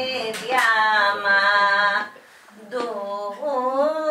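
A woman singing a Greek folk song (demotiko) solo, with long held, ornamented notes. She breaks off for a breath about two seconds in, then carries on.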